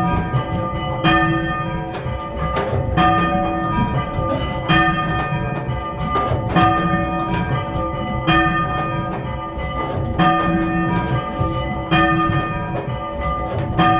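Three church bells cast by Thomas Mears II of London in 1824, rung full circle in English change-ringing style, each striking in turn in a steady repeating sequence with the tones of each stroke ringing on into the next.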